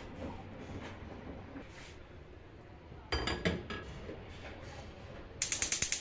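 A cast iron skillet clinking as it is set down on a gas stove's metal burner grate about three seconds in, then a quick run of rapid clicks near the end.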